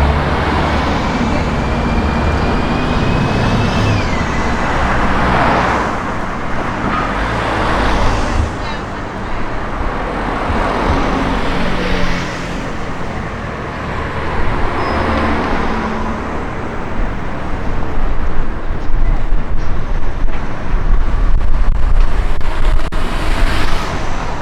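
Street traffic: vehicles passing one after another, each swelling and fading away, with wind gusts buffeting the microphone as a low rumble.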